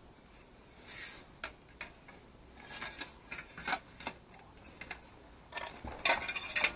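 Clicks and clatter as a loose bicycle mudguard is handled and fitted against the front wheel of a Salut folding bicycle, with a louder run of rattling about six seconds in.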